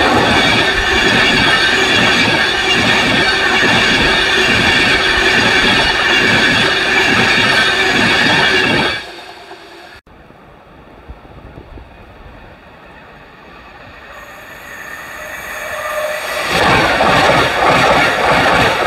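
An LNER InterCity 225 train, a Class 91 electric locomotive with Mk4 coaches, passing close at speed: a steady rush of wheels on rail with a high ring and a rhythmic beat of bogies over the rail joints. It cuts off abruptly about nine seconds in. After a few quieter seconds, a Hull Trains Class 802 unit approaches, growing louder, and passes close by near the end.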